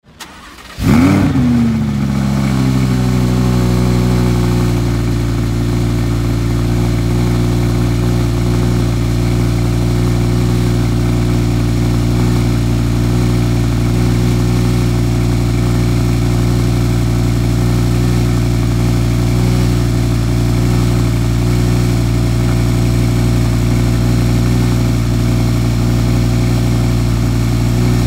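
Audi R8 V10 Plus's 5.2-litre naturally aspirated V10 starting up about a second in, flaring briefly to high revs. It falls back over the next few seconds into a steady idle.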